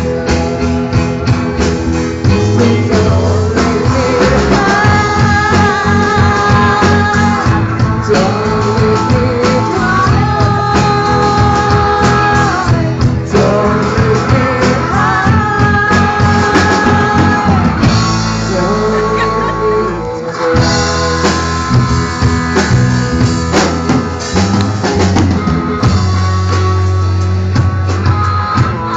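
Rock music with drums and guitar: a steady beat under long, held melody notes that bend in pitch.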